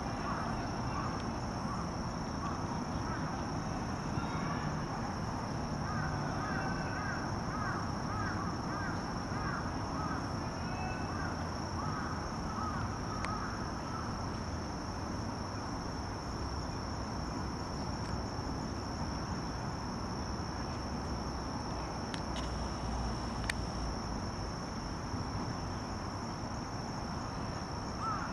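Outdoor ambience of insects trilling steadily in one high, unbroken tone, with a run of faint short chirps from about six to eleven seconds in.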